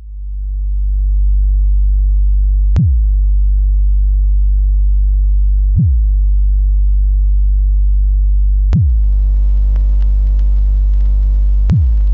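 Electronic film score: a deep low drone swells in over the first second, struck every three seconds by a sharp hit that drops quickly in pitch. From the third hit on, a layer of hiss and steady buzzing hum joins the drone.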